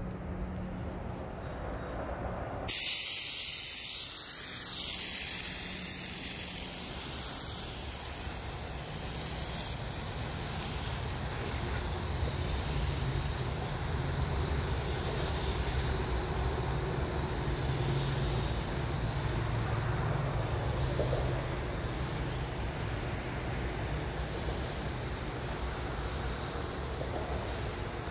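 Water hissing out of a spray nozzle. It starts abruptly about three seconds in and drops to a weaker, steady spray after about ten seconds, over a faint low rumble.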